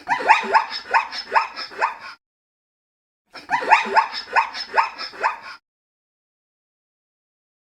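An animal giving two bouts of short, pitched calls in quick succession, about four a second, each bout lasting about two seconds with a gap between.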